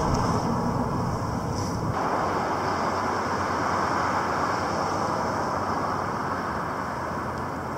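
Steady city traffic noise, an even rush of passing cars, which shifts abruptly in tone about two seconds in.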